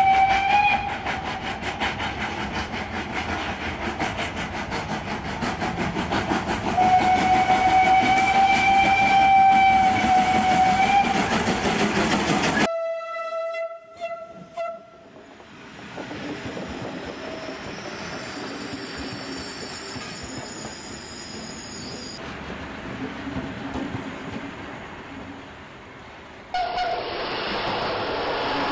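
Steam locomotives working hard with rapid exhaust beats, blowing a brief whistle and then a long whistle blast held for several seconds; the engines are FS Class 625 2-6-0s. About halfway through, the sound cuts to a short horn blast and the quieter running noise of a passing train, which grows louder again near the end.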